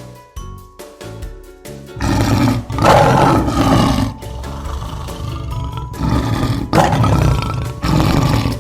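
A big cat roaring in two loud spells, the first about two seconds in and the second near the end, over background music.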